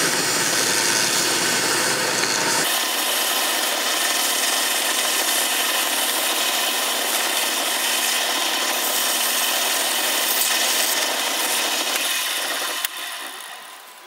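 150-grit sandpaper held against a small wooden knob turning on a lathe: a steady, loud abrasive rubbing over the lathe's running. It fades away near the end.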